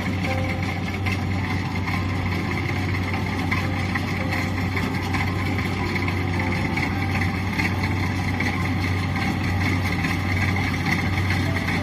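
Kubota DC-70 combine harvester's diesel engine running steadily with an even low hum.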